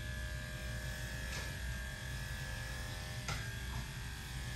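Electric dog grooming clipper running with a steady buzz, with two short clicks about a second and a half and about three seconds in.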